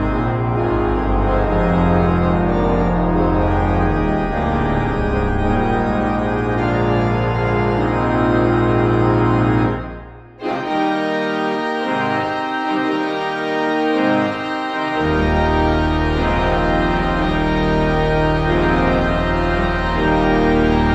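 Church organ playing sustained full chords over deep pedal bass notes. About halfway through the music breaks off for a moment, resumes without the bass, and the deep pedal notes come back in about five seconds later.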